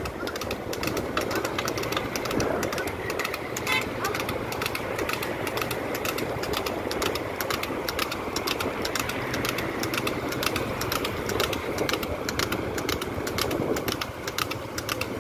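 Water buffalo trotting on asphalt while pulling a racing cart, heard from a moving scooter: steady wind and road noise with a fast, continuous clatter of hoofbeats and cart rattle.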